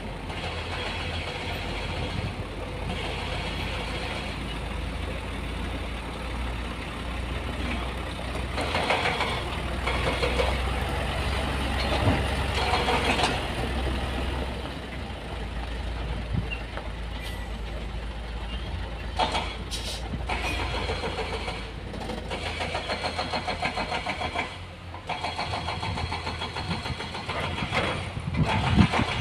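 Diesel dump truck engine running close by, a steady low hum that grows louder for a few seconds about ten seconds in.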